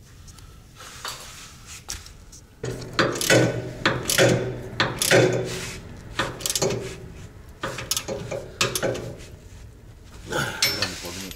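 Ratchet wrench clicking through repeated short strokes as a bolt is run into a Land Cruiser 200's rear frame rail, with some metal-on-metal clinks from the bracket and insert.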